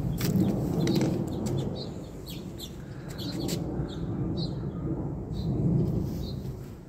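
Small birds chirping in short, scattered notes over a loud, uneven low rumble of wind buffeting the phone's microphone.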